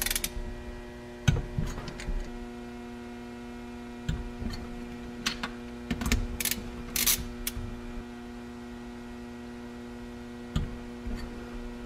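Steady electrical hum, with scattered metallic clicks and knocks from a torque wrench and socket extension being set on and tightening the cylinder base nuts of an Arctic Cat 800 two-stroke engine.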